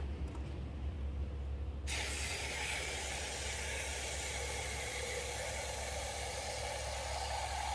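Water from a garden hose nozzle spraying into an empty aluminium Pepsi can, starting suddenly about two seconds in; a tone within the hiss rises steadily as the can fills.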